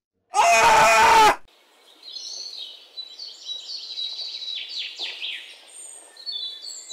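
A loud yell lasting about a second, then many birds chirping and singing over a faint steady hiss.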